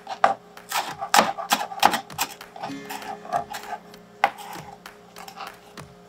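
Chef's knife dicing an onion on a cutting board: an uneven run of sharp knocks, about two or three a second, the blade striking the board with each cut.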